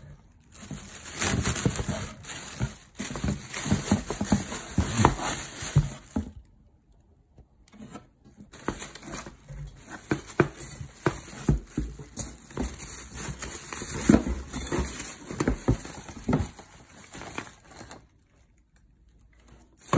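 Plastic wrapping crinkling and rustling as it is handled and pulled off a stainless steel colander, in two long spells with a quiet pause of about two seconds between them; it goes quiet near the end.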